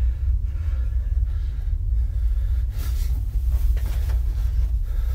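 Steady low rumble, with faint breathy hisses about three and four seconds in.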